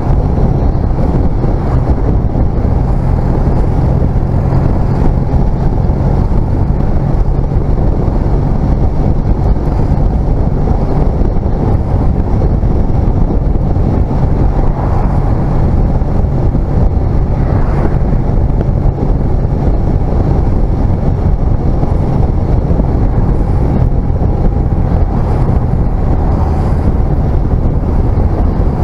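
Honda CMX250C Rebel's air-cooled parallel-twin engine running steadily under way, with wind noise on the microphone.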